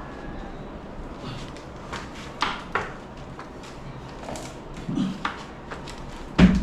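Scattered knocks and clunks of objects being handled and set down, with a loud knock near the end.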